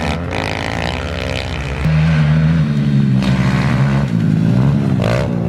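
Pit bike engines running and revving, pitch wavering up and down, getting louder about two seconds in.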